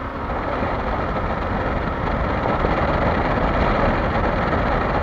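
Kawasaki Versys-X 300's parallel-twin engine running at road speed, mixed with tyre noise on loose gravel. The noise grows a little louder about two seconds in.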